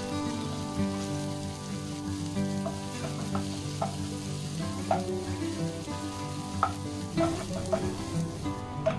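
Sliced shallots sizzling in hot oil in a nonstick wok while a spatula stirs them, with several short knocks and scrapes of the spatula against the pan from the middle onward.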